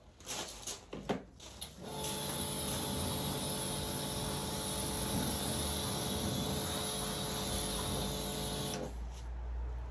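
Kärcher K4 electric pressure washer starting up about two seconds in, its motor and pump running with a steady hum under the hiss of the water jet from the lance, then cutting off abruptly near the end.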